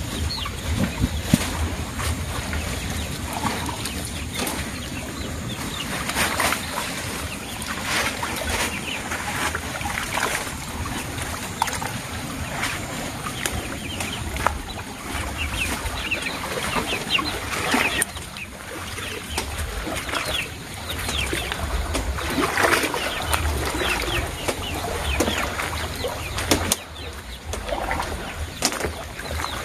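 Pond water sloshing and splashing as a person wades through it, gathering and hauling a fine-mesh fish-fry net, with poultry clucking throughout.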